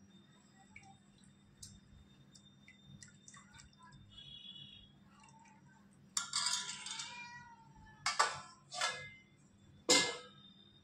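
A cat meowing. There is one long meow about six seconds in that falls in pitch, then three shorter, loud meows near the end.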